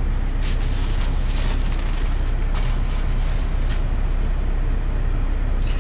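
Steady low rumble and hiss of an idling car, with a few soft rustles in the first few seconds.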